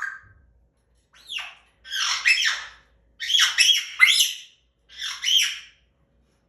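African grey parrot giving a string of loud squawks: a short call at the start, a falling call about a second in, then three longer harsh squawks.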